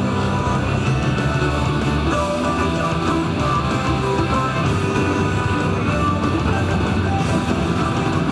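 Loud rock music with guitar played over a sound system.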